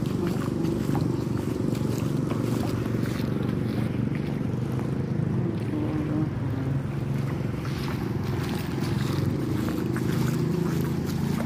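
Motor vehicle engines running steadily, with scattered light clicks over the top.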